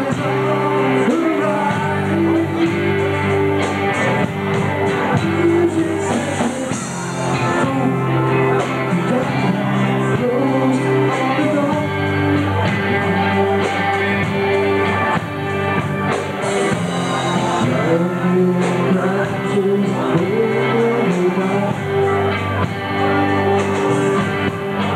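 Live amateur rock band playing: electric guitar, bass guitar and drum kit with cymbals, with a man singing into the microphone.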